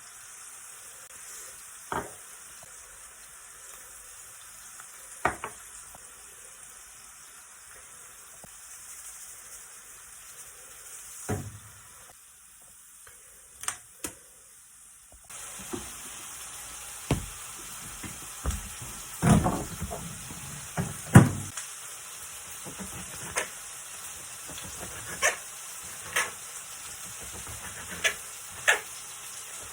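Eggplant frying in a pan: a steady sizzle of hot oil, with scattered knocks and scrapes of a utensil stirring against the pan. The sizzle drops away for a few seconds in the middle and comes back louder.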